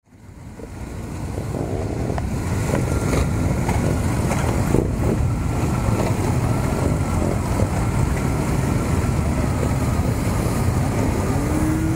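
Engines of a large column of motorcycles running as they ride slowly past close by, a steady mixed rumble. The sound fades in over the first couple of seconds.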